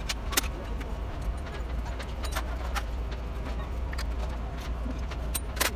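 Scattered short metallic clicks and taps as hand tools and small parts are handled on an open engine cylinder head, over a steady low hum. The loudest click comes near the end.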